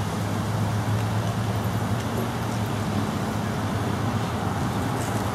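Steady low rumble of outdoor background noise with a constant low hum, with no distinct events.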